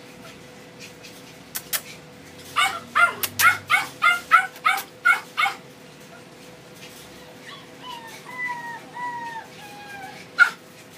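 A dog barking in a quick run of about eight short, high barks, then a few longer whines that fall in pitch. A sharp knock comes near the end.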